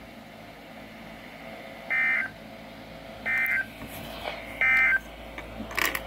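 NOAA Weather Radio SAME end-of-message data bursts through a Midland weather radio's speaker: three short, identical digital warbles about a second apart over faint hiss, marking the end of the tornado warning broadcast. A brief click comes just before the end.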